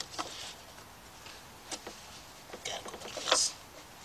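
Scattered clicks and short scrapes of the battery hold-down bracket and its bolt being fumbled into place by hand beside a car battery. The loudest is a brief scrape just over three seconds in.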